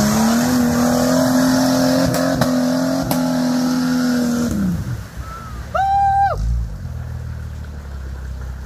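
Off-road 4x4's engine revved hard and held high while its tyres spin in deep mud, flinging it out; the revs drop away about four and a half seconds in. A short high-pitched call follows, then a low engine rumble.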